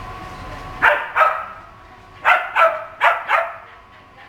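Shetland sheepdog barking while running an agility course: six short, sharp barks in three quick pairs.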